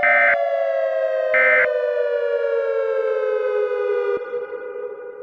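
Civil defense siren winding down, its pitch falling slowly. Over it come two short buzzy electronic data bursts about a second and a half apart: EAS end-of-message tones closing the alert. The siren tone breaks off about four seconds in and fades away.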